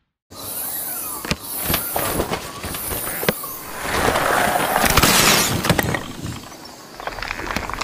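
Glass cracking and shattering, with many sharp clicks and a louder crackling crash about four to five seconds in.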